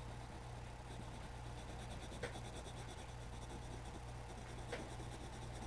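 Short black coloured pencil scratching on drawing paper, shading in a small circle with quick back-and-forth strokes, faint over a steady low hum, with two light ticks about two and five seconds in.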